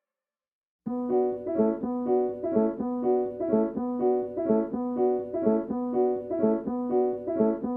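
Background music: a piano playing an even, repeating pattern of notes, about two a second, starting after a second of silence.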